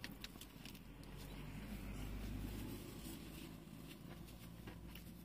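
Quiet crunching and chewing of a breaded, deep-fried chicken fillet burger being bitten into and eaten, with a few faint crisp clicks scattered through. A low rumble swells and fades around the middle.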